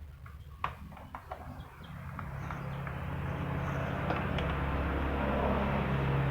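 A few clicks and taps, then from about two seconds in a steady mechanical hum with a gritty hiss that grows louder and holds.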